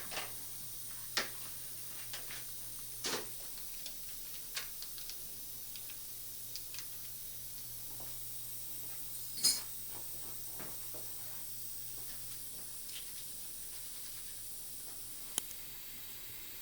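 Steady hiss with a low hum behind it, and scattered light clicks and taps of metal dental surgical instruments, the loudest about halfway through.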